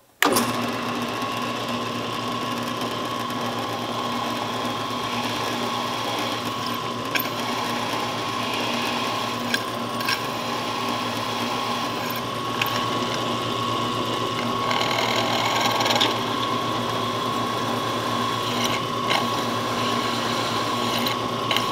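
Drill press motor running steadily while its bit drills through a thin aluminum plate, a constant hum with a steady whine over it.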